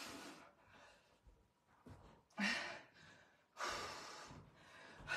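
A woman breathing hard from exertion during floor crunches: a few heavy, sighing exhalations, the clearest about two and a half and about four seconds in.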